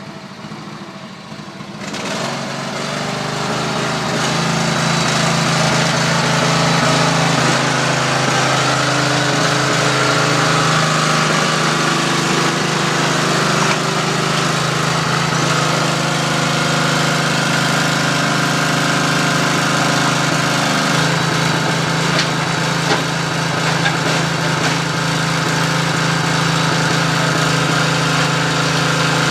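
Mini recycling baler's motor starting up about two seconds in and running steadily through its crushing cycle, a loud steady hum whose pitch shifts slightly a couple of times as the load changes.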